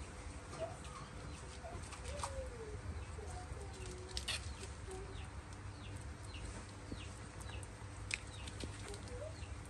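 Faint, short animal calls, chirps and squeaks rising or falling in pitch, scattered throughout, with a few sharp clicks, the strongest about four seconds in and again about eight seconds in.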